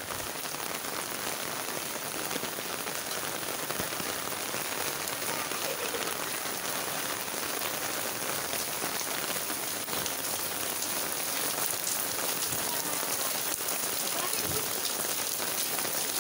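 Steady rain falling on a paved alley and roofs, an even hiss.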